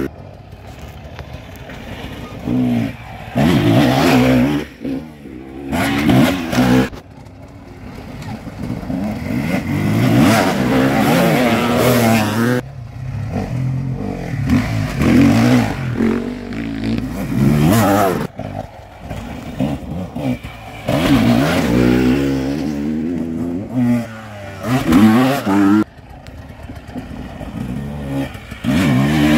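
Off-road dirt bikes revving as they pass one after another, the engine pitch climbing and dropping with the throttle in repeated loud bursts of a few seconds each.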